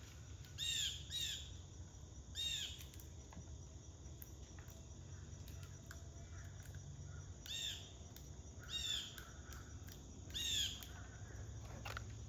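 Blue jay giving harsh squawking calls, about six of them, some in quick pairs, with gaps of several seconds in the middle.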